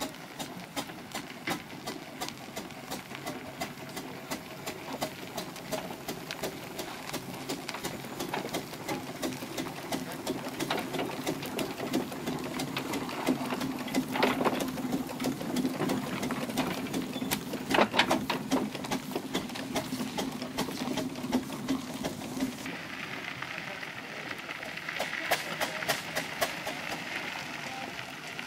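1902 Fowler steam traction engine running at walking pace: a rapid, even mechanical clatter with a couple of louder knocks midway. Near the end the clatter turns brighter.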